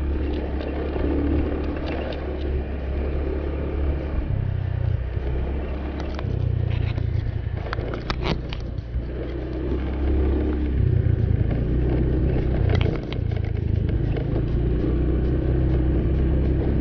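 Honda motor scooter's engine running while riding over a rough dirt field, its note rising and falling a little. A few sharp knocks and rattles come in the middle as it goes over bumps.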